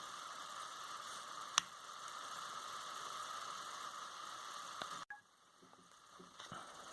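Faint steady hiss of recording noise, with one sharp click about a second and a half in. The hiss cuts out suddenly about five seconds in, leaving a few faint ticks.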